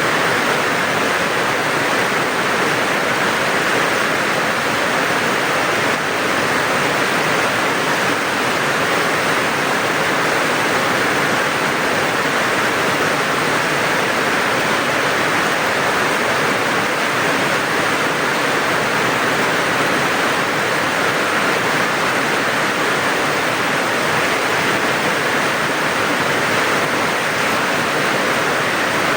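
Steady rain falling, an even hiss that stays the same throughout.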